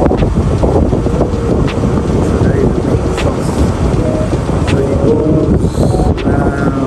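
Wind buffeting the microphone over the steady rumble of a moving car, loud and gusty.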